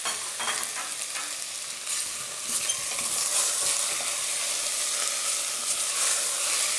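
Diced chicken breast frying in oil with onion and garlic in a stainless steel pan, a steady sizzle that grows a little louder about two seconds in. A silicone spoon stirs and scrapes the meat around the pan.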